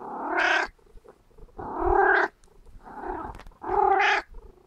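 Elderly grey long-haired cat meowing four times in a row. Each call is drawn out for about half a second to a second, with short pauses between.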